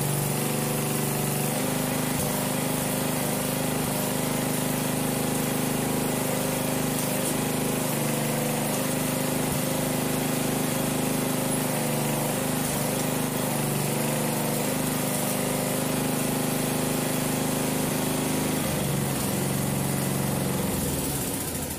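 Simplicity Regent lawn tractor's 12 hp Craftsman engine running steadily, its note shifting down and back up a few times as the drive is engaged and the tractor fails to move forward. Smoke is coming from the drive, which the owner first takes for a loose belt and later traces to the parking brake locking the drivetrain.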